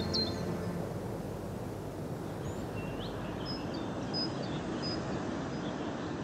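Steady outdoor background noise with small birds chirping now and then, short high chirps scattered through it.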